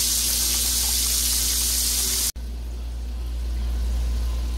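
Breaded steak fingers deep-frying in hot oil in a skillet: a steady, even sizzling hiss. A little over two seconds in it cuts off abruptly, leaving a quieter low steady hum.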